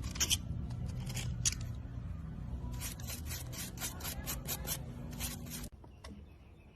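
A quick run of crisp scraping or cutting strokes over a low hum, cutting off suddenly near the end.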